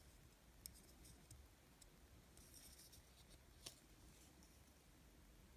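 Near silence, with two faint clicks, one under a second in and one about two-thirds through, from the small plastic and metal parts of an N scale model locomotive frame being handled and fitted together.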